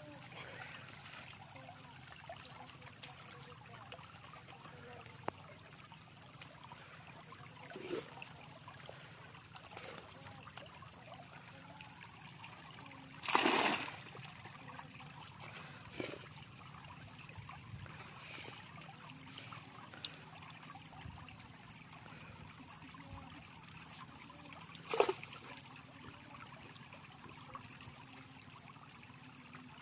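Shallow water trickling and lapping against a fishing net and bamboo platform, with a few short splashes. The loudest is a brief pour about 13 seconds in, as water and catch are tipped from a mug into a netted holding pen.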